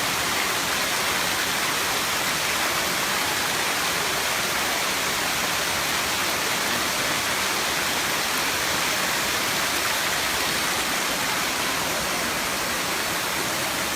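Waterfall: water pouring and splashing in a steady rush.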